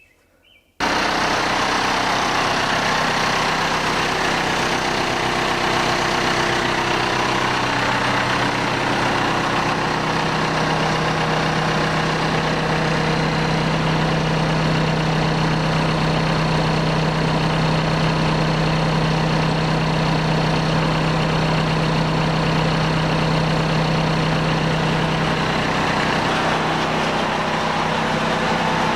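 Case 580C backhoe's engine running steadily, starting about a second in. A low hum in the sound grows stronger for roughly fifteen seconds in the middle.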